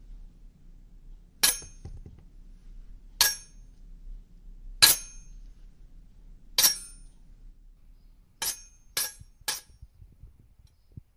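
Sharp, high ringing clinks, one about every second and a half, then three in quicker succession near the end.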